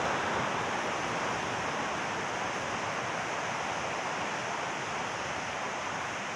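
Steady outdoor rushing noise with no distinct events, fading slowly.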